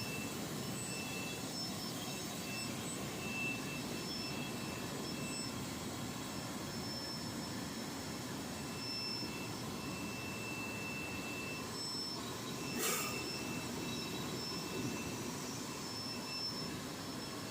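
Industrial fruit and vegetable bubble washing machine running: a steady machinery noise with a faint high whine that comes and goes, and one sharp knock about thirteen seconds in.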